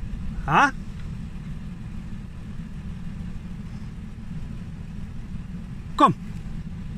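Vehicle engine idling steadily with a low rumble. About half a second in there is one short rising call, and near the end a man says a falling 'Kom'.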